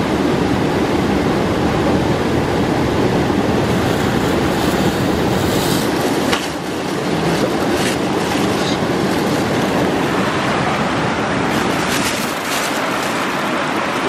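Steady loud rush of a mountain stream. A few brief knocks and rustles of handling come through it, mostly around the middle and near the end.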